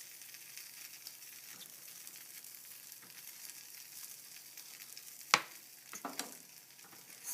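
Omelette frying in a non-stick skillet: a soft, steady sizzle, with one sharp click a little over five seconds in and a fainter one about a second later.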